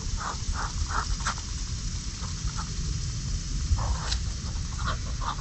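Muscovy ducks feeding on birdseed on a concrete sidewalk: a quick, irregular run of bill taps and nibbling clicks as they peck up the seed, over a low rumble.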